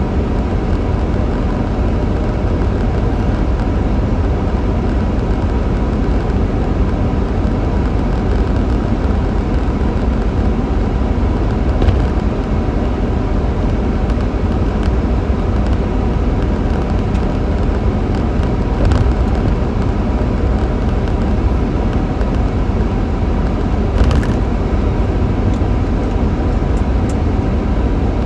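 Jaguar V12 car cruising at steady highway speed: continuous engine, tyre and wind noise, with a few faint knocks.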